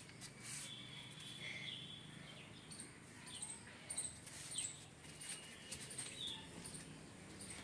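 Faint, scattered chirps of small birds, with a few soft taps.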